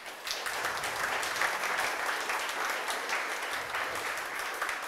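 Audience applauding, a steady patter of many hands clapping that begins right at the start and eases slightly near the end.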